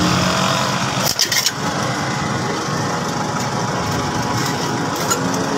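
Steady engine or traffic noise in the background. About a second in comes a quick cluster of sharp metallic clicks and taps as a piston is driven down through a band-type ring compressor into the cylinder bore, then one more click near the end.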